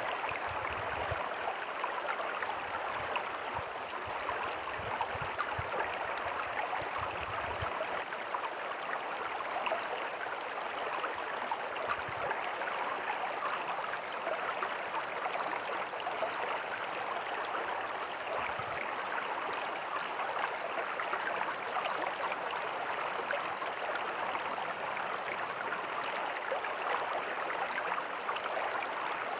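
Small creek flowing over rocks with a tiny waterfall: a steady splashing, gurgling rush of water, with a few low rumbles in the first several seconds.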